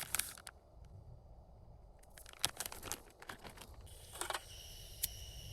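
Plastic packaging crinkling in several short bursts as extra cheese is added to the dish.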